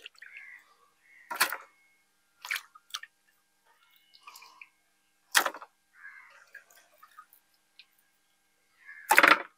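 Washed raw chicken pieces being handled and set down wet on a metal plate: water dripping and splashing, with about five separate sharp wet slaps spread a second or more apart.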